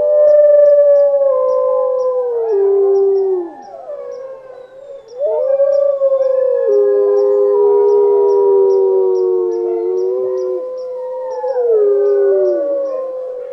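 Several wolves howling in chorus: long, overlapping howls held on steady pitches that slide down at their ends, with a short lull about four seconds in before a new howl rises. Underneath, a faint high chirp repeats about three times a second.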